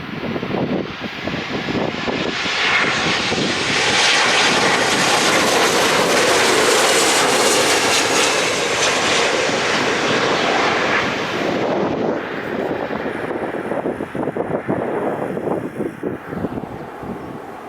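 A fixed-wing aircraft passing close along the runway: its engine noise builds over the first few seconds, is loudest through the middle, then fades away. Wind buffets the microphone near the end.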